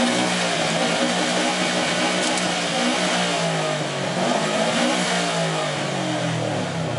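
Subaru Impreza wagon's flat-four engine revved hard through a loud aftermarket exhaust. It is revved twice, the pitch climbing and falling back each time.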